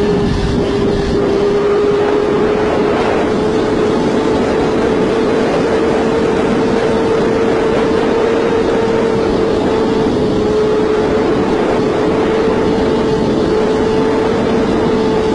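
Sport motorcycle engine held at high revs near top speed, about 290 km/h, a steady high drone that barely changes pitch, under heavy wind rush on the microphone.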